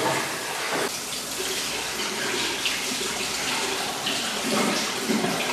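Water running steadily from a washroom sink tap, splashing over hands being washed under the stream.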